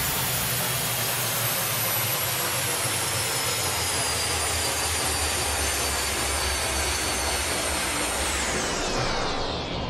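The tail of an electronic drum and bass soundtrack: a steady rushing noise sweep with thin tones slowly falling in pitch, which drops faster and fades out near the end.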